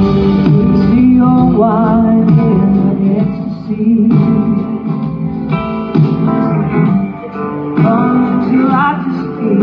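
Live rock band playing, with a guitar carrying a wavering melody line over keyboards, bass and drums.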